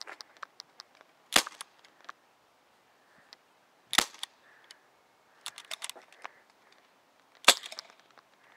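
Airsoft pistol fired three single shots, each a sharp crack, a few seconds apart.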